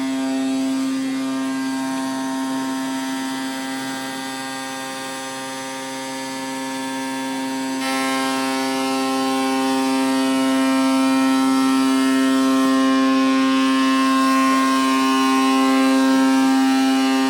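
High-speed spindle of an ATC CNC router running at a steady speed, a constant high-pitched whine with many overtones. About eight seconds in a hiss joins it and it grows slightly louder.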